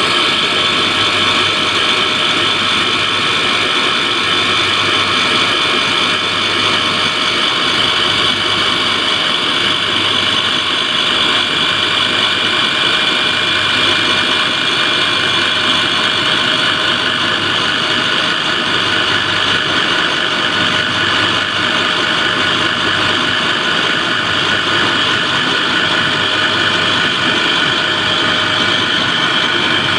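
KES-55 rotary screw air end running steadily with an abnormal sound: an even mechanical drone with a steady high-pitched whine over it.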